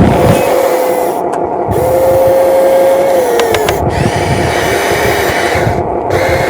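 Small electric motors of a radio-controlled excavator whining as it works. The whine steps up in pitch about two seconds in and drops back a second and a half later, over a low, uneven rumble.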